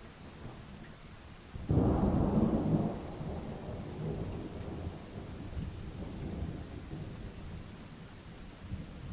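Thunder starts suddenly about a second and a half in, loudest for about a second, then rumbles on and slowly fades, over steady rain.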